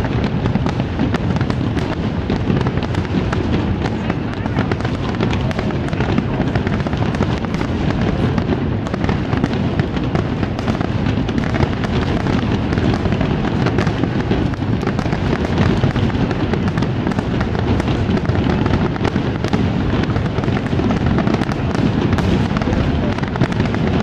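Large fireworks display in full barrage: a dense, continuous run of bangs and crackling with no pause, over a low rumble of overlapping booms, heard through a phone's microphone.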